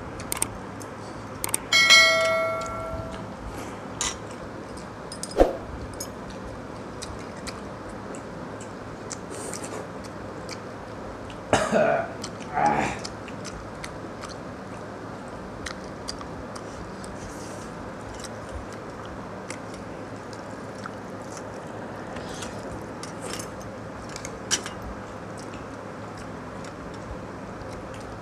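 Eating by hand from steel bowls and plates: small scattered clicks of fingers and dishes over a steady background hiss. About two seconds in, a steel bowl or plate is knocked and rings briefly, and near the middle there are two short throat sounds.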